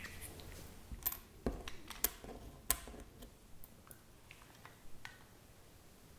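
Scattered light clicks and taps of small sculpting tools and clay being handled on a work table, the clearest few in the first three seconds and fainter ones after.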